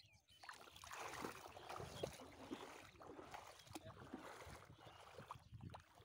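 Faint, irregular sloshing of shallow river water stirred by a hand and by wading legs.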